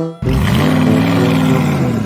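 Loud music or a music-like sound effect: after a brief break, one long held low note with a noisy edge, dipping slightly in pitch near the end.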